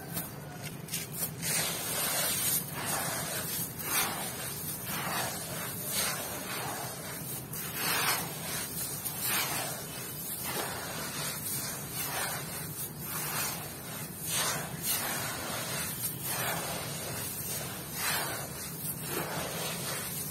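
Handfuls of dry crushed stone grit and sand are scooped by hand and poured back onto the heap, a gritty rattling hiss that surges about once a second as each handful falls.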